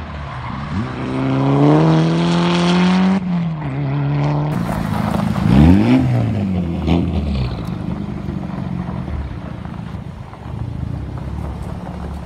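Mitsubishi Lancer Evolution rally car's turbocharged four-cylinder engine accelerating hard, its pitch rising and then dropping at a gear change about three seconds in. After a cut, one quick rev up and down, then the engine runs at a low, steady note.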